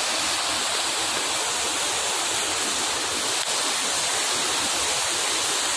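Rain-swollen muddy torrent pouring down a hillside: a steady, unbroken rush of water.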